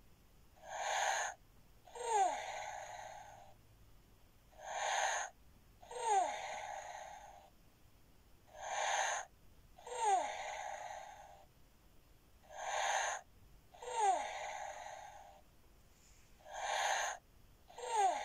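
FurReal Koala Luv Cub toy playing its recorded breathing sound: a short breath in, then a longer sighing breath out with a falling squeak, repeating five times about every four seconds.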